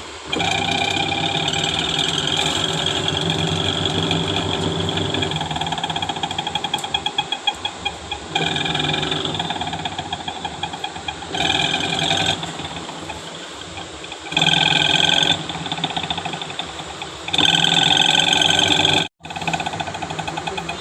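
Panasonic Active Foam 8 kg washing machine running its spin with an empty drum, a loud steady whine over a fast rattle, stopping and starting abruptly several times. The noise is the spin fault that the owner sets out to trace and that is fixed by replacing the gearbox.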